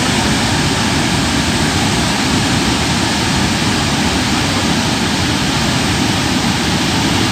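Steady loud rush of a muddy landslide-fed flash flood, a torrent of brown water and debris surging down a valley.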